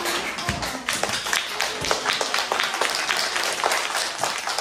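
Group applause: many hands clapping steadily and unevenly.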